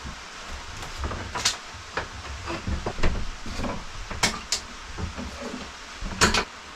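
Wooden wedges being knocked loose and pulled out from a freshly glued cabin-side repair: a series of sharp wooden knocks and clatters, the loudest a quick double knock near the end.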